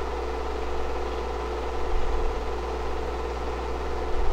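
Film projector running with a steady mechanical hum and low drone.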